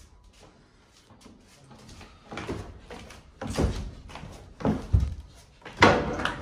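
Footsteps going down wooden stairs: a few heavy thuds about a second apart, starting about two seconds in and getting louder.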